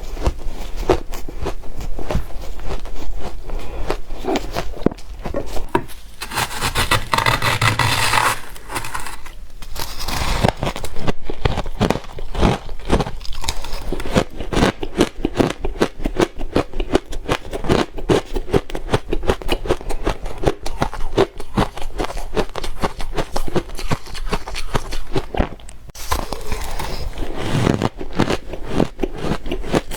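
Close-miked chewing of soft, powdery ice and crushed ice: a dense, rapid run of crunches throughout. It is broken by two longer hissing, scraping stretches, one about seven seconds in and one near the end.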